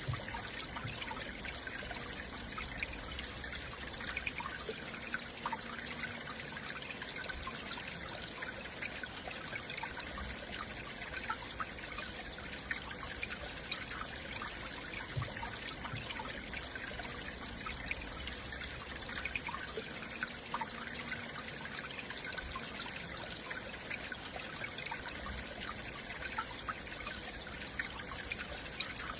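Stream water flowing and trickling steadily, a continuous babble with many small splashes and drips over a constant rush.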